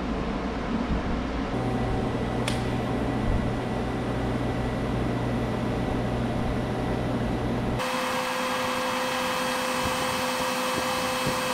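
TIG welding on aluminized steel exhaust pipe with a Fronius MagicWave 230 inverter welder: a steady hiss with an electrical hum that comes in about a second and a half in. A single click follows a second later, and near the end the sound turns abruptly brighter and hissier.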